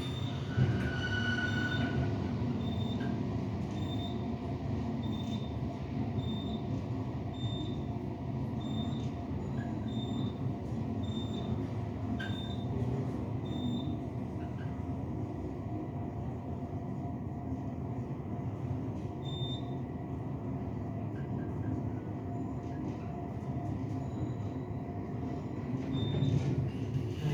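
Elevator car running, a steady rumble and hum of the car in motion. A faint high beep repeats about every three-quarters of a second through the first half.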